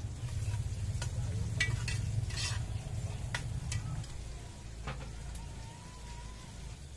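Metal ladle stirring a pot over a wood fire, clinking and scraping against its sides several times over the first five seconds, with food sizzling in the pot. A low steady rumble underneath fades after about four seconds.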